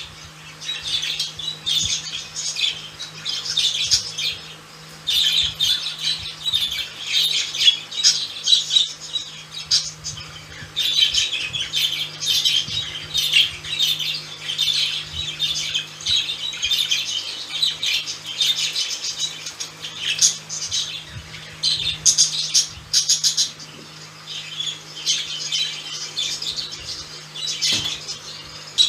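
Pet budgerigars chattering and warbling in their cage: a rapid, high-pitched stream of chirps and squawks with only short lulls. A steady low hum runs underneath.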